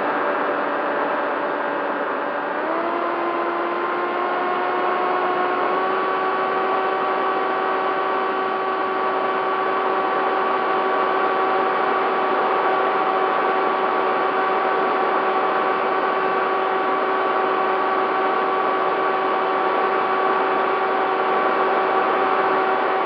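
Bixler 3's electric motor and pusher propeller running with a steady whine over a rush of air, recorded close up by the onboard camera. The pitch steps up twice in the first six seconds as the throttle is raised, then holds steady.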